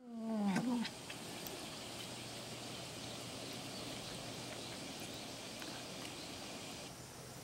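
A cat gives one short meow that falls in pitch right at the start, followed by steady outdoor background noise with a faint high hiss.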